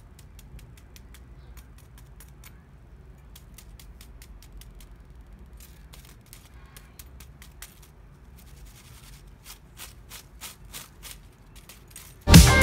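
Crisp fried potato cubes clicking and rattling against a stainless steel mesh strainer and a metal slotted spoon as they are turned. The light clicks are scattered at first and come faster in the second half, over a faint low hum.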